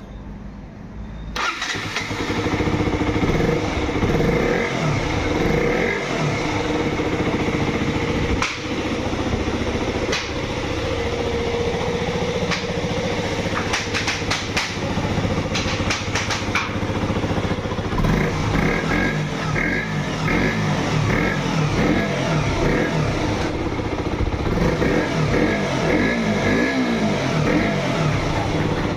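KTM RC 125's single-cylinder four-stroke engine, newly rebuilt, starting up and catching within the first couple of seconds, then running steadily with small changes in speed.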